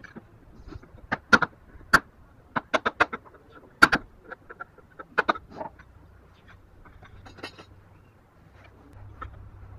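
Hammer striking a wood chisel's handle, chopping out a joint in a block of hardwood: a quick, irregular series of sharp knocks that stops about six seconds in.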